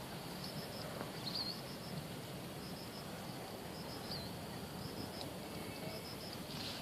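Outdoor insect and bird chirping: short high chirps repeating in quick trains, with a few single bird chirps, over a steady background hiss.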